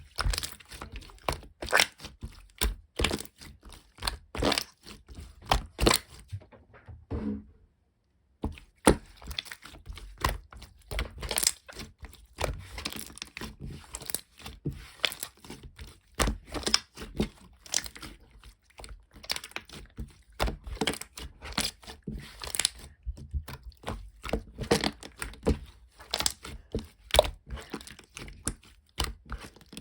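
Clear slime being squished and pressed by hand, giving a quick, irregular run of sticky clicks and pops, with a pause of about a second a quarter of the way in.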